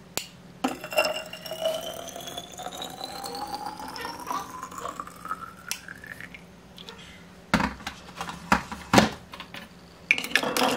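Water poured into an empty glass bottle, its pitch rising steadily over about five seconds as the bottle fills. After that come a few sharp knocks and clicks.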